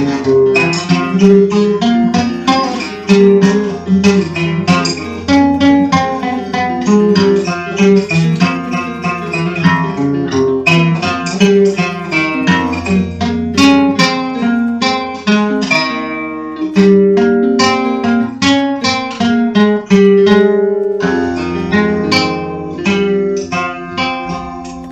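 Acoustic guitar music: a fast run of plucked notes over strummed chords, fading away near the end.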